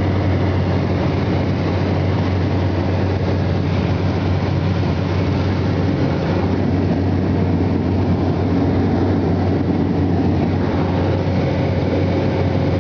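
Steady, loud low rumble of a running vehicle, engine drone and road noise without a break.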